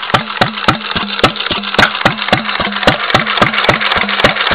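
Antique Stover 4 horsepower gas engine running steadily on its throttle governor, firing in an even train of sharp beats about four times a second over a steady low hum.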